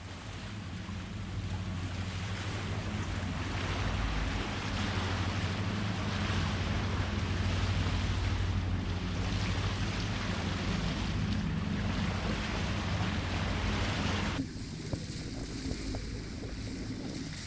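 Water rushing past the hull and wind on the microphone of a boat under way, over a steady low engine hum. About fourteen seconds in the rush drops off suddenly, leaving a quieter hum.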